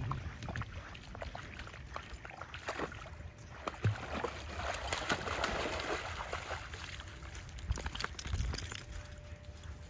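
Silver Labrador puppy splashing and wading in shallow river water at the bank, with water sloshing and splashing loudest in the middle.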